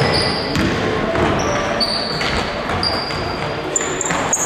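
Basketball shoes squeaking in short, high chirps on a hardwood gym floor as players run and cut, with a basketball bouncing now and then and voices echoing in a large hall.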